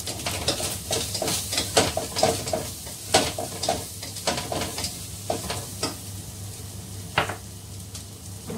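Wooden spatula stirring and scraping in a pan of fresh shrimp frying in sizzling oil: a quick run of clatters over the sizzle, busiest in the first four seconds, with one sharper scrape about seven seconds in.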